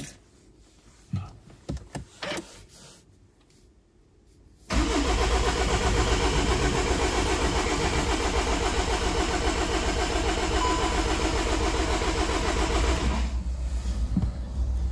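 VW Golf 7's starter cranking the engine for about eight seconds without it catching, in a steady rhythmic churn that starts suddenly about five seconds in. It is a crank-but-no-start, with a P025C fault code pointing at the fuel pump control module.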